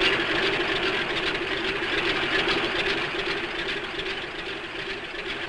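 Propeller aeroplane engine running steadily, a rough drone with a constant hum, growing somewhat quieter toward the end.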